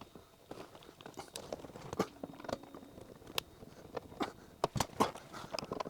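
A hand screwdriver working small Phillips screws out of car interior trim: irregular small clicks, ticks and scrapes of metal on screw heads and plastic trim, a few louder clicks about two, three and a half and five seconds in.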